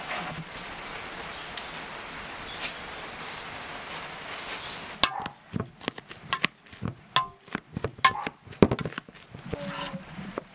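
A steady hiss over a steaming pot of boiled potatoes. From about five seconds in, it changes to sharp, irregular knocks and clinks of a knife chopping and mashing the boiled potatoes in an enamel bowl.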